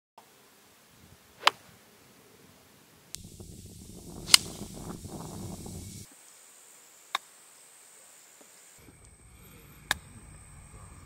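Golf club striking the ball, four crisp clicks about three seconds apart, the loudest near the middle; the first three are full iron shots and the last, near the end, is a short chip.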